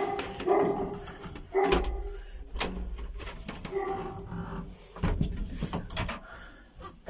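An old elevator's wooden swing landing door and cabin doors being opened and shut: short creaking squeals from the hinges, with latch clicks and a couple of dull thuds.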